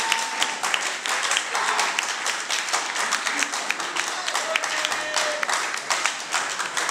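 Crowd applauding, dense hand-clapping with scattered shouts from spectators.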